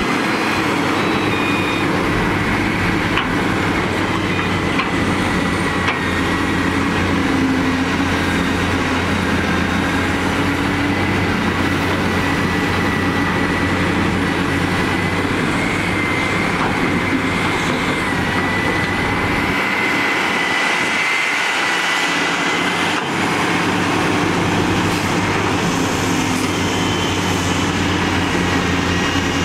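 Hitachi hydraulic excavators and diesel dump trucks working: a steady heavy diesel engine drone with a thin, steady high whine over it. The low rumble drops away briefly about twenty seconds in.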